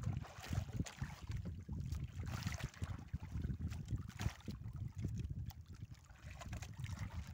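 Wind buffeting the microphone over sea water lapping against a small boat's hull: an irregular, gusting low rumble with faint splashy hiss.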